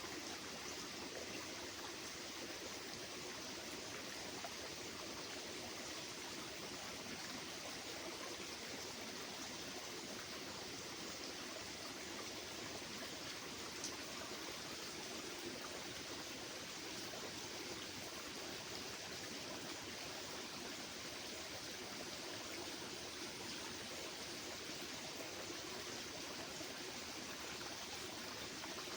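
Steady, even rushing noise with no clear bird calls.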